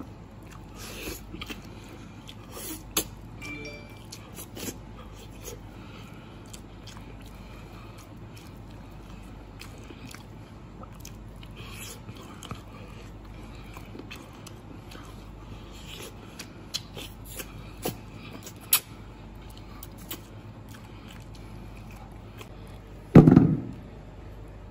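Close-up eating sounds of a person gnawing soy-sauce braised pork bones: lip smacks, sucking and chewing, with scattered small clicks. Near the end comes one loud knock as a stripped bone goes down on the steel tabletop.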